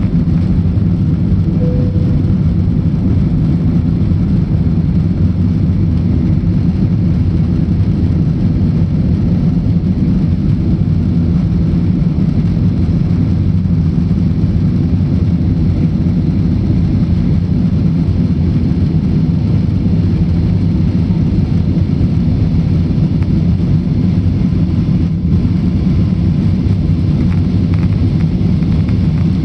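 Steady low cabin roar of an Airbus A320-family jet's engines and airflow during the climb after takeoff. A brief faint tone sounds about two seconds in.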